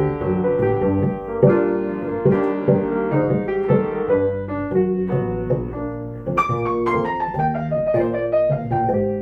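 Jazz piano playing chords and melody with bass underneath. About six seconds in, the piano plays a quick run of notes falling in pitch.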